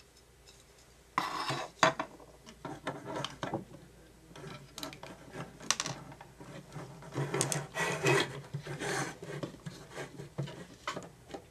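Hard plastic parts of a toy RC spy car's camera box being worked loose by hand: irregular scraping and rubbing with sharp clicks, loudest in the middle.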